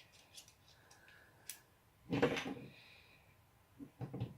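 Small plastic clicks and knocks from a Panasonic ES-SL41 shaver's parts being handled and fitted back together by hand, with one louder clack about two seconds in.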